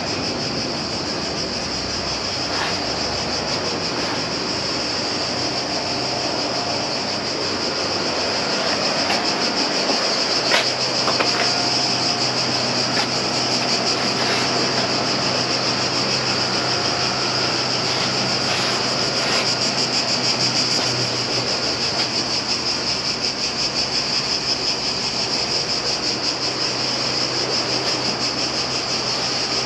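Steady rushing noise from a motor-driven car-cleaning machine working the interior, with a low hum joining about a third of the way in and a couple of brief knocks just before it.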